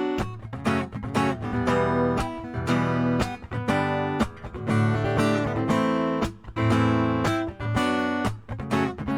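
Acoustic guitar strumming chords in a steady rhythm, with no singing yet.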